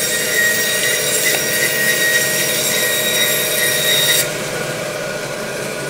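Meat band saw splitting a lamb saddle down the middle of the backbone, a steady high whine with hiss as the blade cuts through bone. About four seconds in the cut finishes and the hiss drops away, leaving the saw running more quietly.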